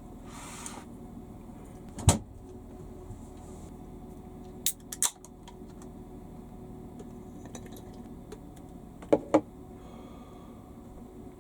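A few short, sharp clicks and knocks of small objects being handled: one about two seconds in, a quick group of three around five seconds, and two close together about nine seconds in, over a steady low hum.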